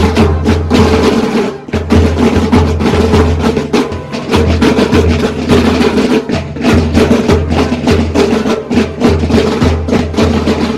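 School marching band's snare drums and a bass drum playing a steady marching beat, with many quick strokes.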